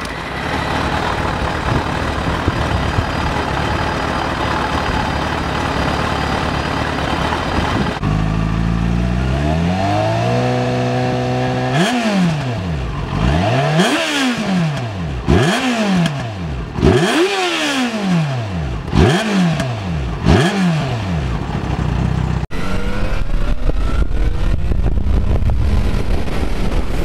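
Yamaha Fazer 600's inline-four engine revved with the bike standing still: the note climbs and holds for a couple of seconds, then about six quick throttle blips, each rising and falling in pitch. Before and after the revving there is a steady rushing noise, and near the end the bike rides off with wind on the microphone.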